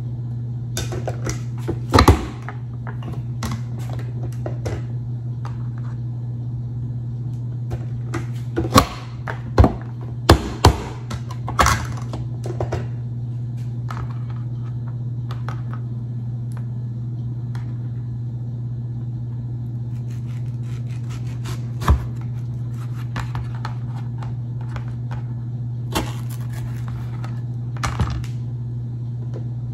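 Irregular knocks and clicks of a knife and kitchen utensils on a cutting surface while cutting mango. The sharpest thunks come about two seconds in and in a cluster around ten seconds in. A steady low hum runs underneath.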